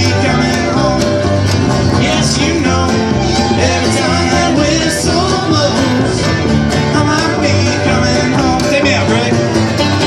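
Live folk-rock string band playing: upright bass, strummed acoustic guitar and a second plucked string instrument, mostly instrumental after a sung chorus.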